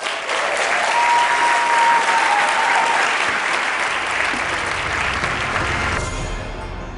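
Large seated audience applauding, dense steady clapping with a thin steady whistle-like tone for a couple of seconds. About six seconds in the clapping fades as low pulsing outro music begins.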